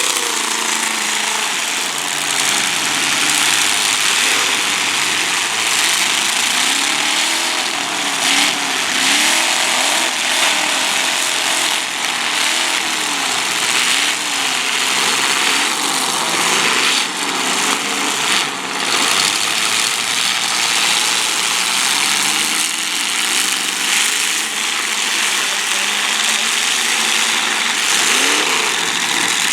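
Demolition derby cars' engines running hard, several revving up and down over and over, with a few sharp bangs of car bodies hitting about a third and again about two thirds of the way in.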